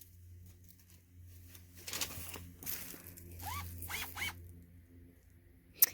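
Scraping and handling noises, then three quick blips of a cordless drill's motor, each a short rising whine, and a sharp click near the end.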